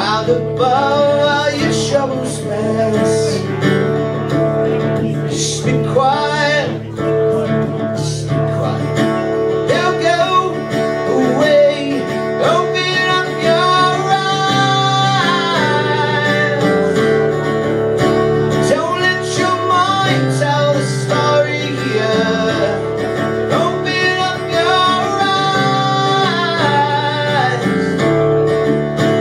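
A man singing live with his own acoustic guitar in a solo performance; the music and singing carry on without a break.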